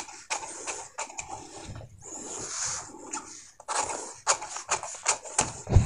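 Large tailor's scissors snipping through stiff brown pattern paper, a run of sharp cuts with the paper rustling. A dull thump near the end.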